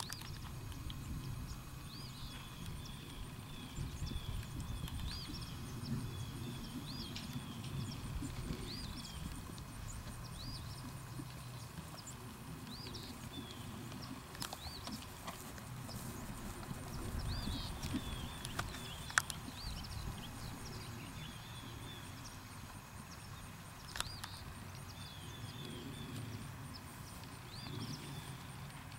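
Hoofbeats of a ridden horse moving over turf, with a low rumble under them. Short high chirps come in runs every few seconds, and a sharp click sounds about two-thirds of the way through.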